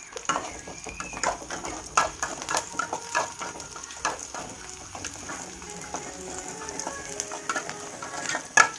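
Chopped onions sizzling in hot oil in a metal kadhai while a metal spoon stirs them, scraping and clinking against the pan. One clink near the end is louder than the rest.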